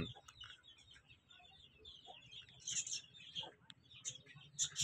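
Young Aseel chicks peeping: scattered short, high chirps, with a cluster of them near the end.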